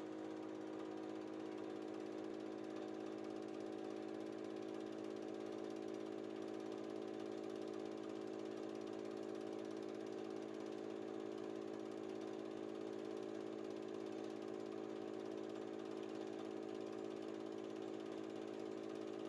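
Super 8 film projector running, a steady motor hum and whir with no change in pitch.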